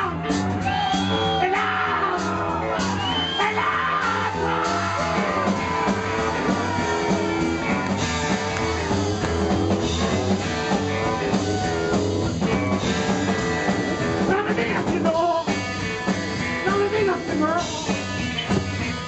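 Live rockabilly/rhythm-and-blues band playing an instrumental break: solid-body electric guitar over upright double bass and drums, with a steady driving beat.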